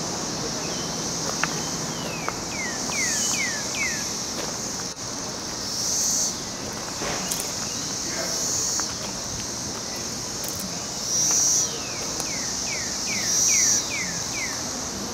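Steady high trilling of insects, swelling louder every two to three seconds, with a bird singing two runs of five or six quick falling whistles.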